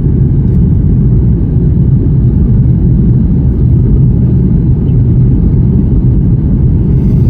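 Loud, steady low rumble of a Boeing 737 MAX 8's CFM LEAP-1B jet engines heard from inside the passenger cabin.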